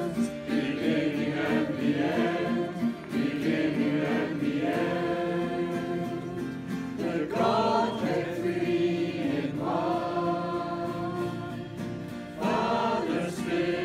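A mixed group of men and women singing together from song sheets, many voices at once, with short breaks between phrases.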